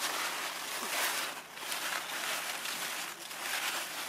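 Broad leaves of a butternut squash plant rustling and brushing as hands push them aside, in several swells.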